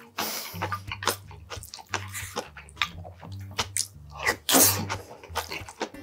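Close-up eating sounds: a wooden spoon scraping and knocking in a steel bowl of rice, with wet chewing and lip smacks. A loud slurp about four and a half seconds in as a spoonful goes into the mouth.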